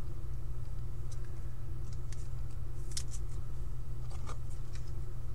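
Light rustles and clicks of trading cards and foil packs being handled on a table, a few at a time, over a steady low hum.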